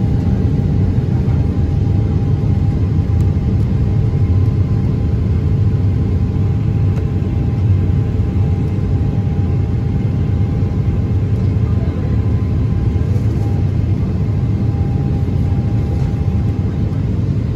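Steady cabin noise of a Boeing 777 climbing after take-off: an even, loud rumble of the engines and rushing air, with a faint steady whine running through it.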